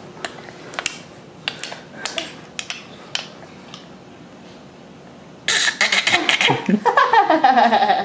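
A few soft clicks and knocks, then about five and a half seconds in a woman starts laughing loudly, in quick repeated peals that fall in pitch.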